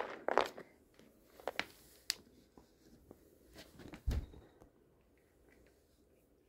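Faint scattered clicks and a soft low thump about four seconds in, from cat treats being handled and dropped onto carpet.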